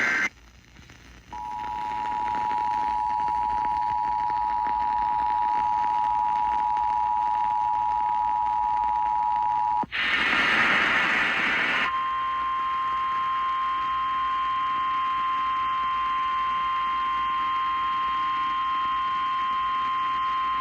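Emergency Alert System tones off the air: the two-tone EAS attention signal held steady for about eight seconds, then about two seconds of buzzy, screechy SAME data-burst noise, then the single steady 1050 Hz NOAA Weather Radio warning tone.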